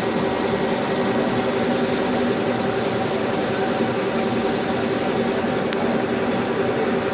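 Metal lathe running steadily: an even machine hum with several constant tones.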